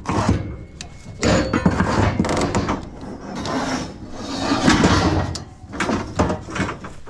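Scaffold boards and steel scaffold parts being pulled and shifted on a trailer bed: a string of irregular knocks, clatters and scrapes.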